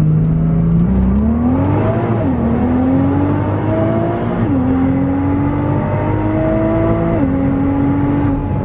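2017 Nissan GT-R's twin-turbo 3.8-litre V6 through an Armytrix valved exhaust with the valves closed, heard from inside the cabin, accelerating hard from a roll in first gear. The engine note starts climbing about a second in and drops three times as it shifts up through the gears.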